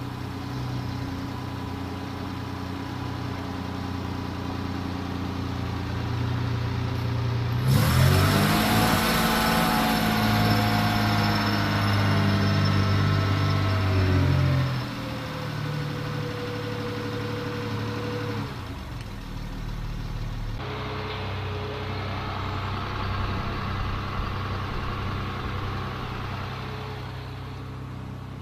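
Unimog 404's petrol straight-six running after a carburetor rebuild. About eight seconds in it is revved up sharply, and the revs sink back slowly over the next ten seconds before it settles into a steady run again.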